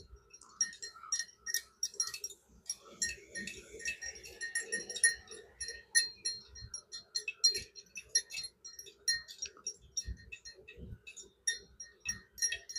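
Honey bees in an opened, queenless hive: a faint steady hum, under many light clicks and short high tinkling notes.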